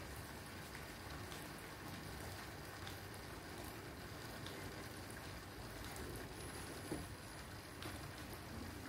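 Aquarium water circulating: a steady, quiet hiss and patter of moving water, with a few faint ticks and one small click about seven seconds in.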